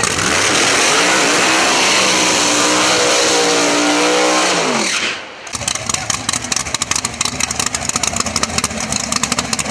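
Drag race car engine held at high revs, its pitch climbing over about five seconds, then cutting off sharply; a choppy, pulsing engine rumble follows.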